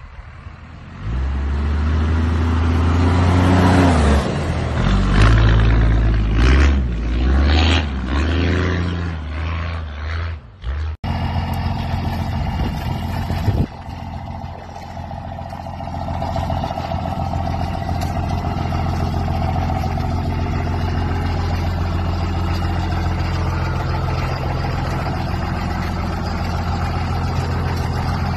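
Diesel pickup engine revving hard, its pitch climbing and dropping, as the truck drives through snow. After a sudden cut, a second diesel pickup, a Dodge Ram dually, idles steadily, with one brief sharp blip shortly after the cut.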